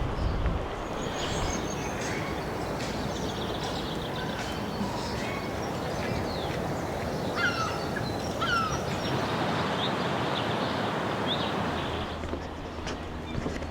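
Several wild birds chirping and calling over a steady rushing background noise, with a few louder, sweeping calls about halfway through.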